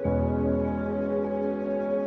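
Slow ambient new-age background music: sustained chords, with a chord change right at the start.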